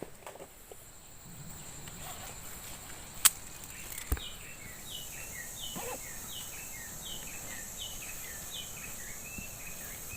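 A bird calling a long series of short falling notes, about two a second, over a steady high hiss of insects. A sharp click comes about three seconds in and a knock a second later.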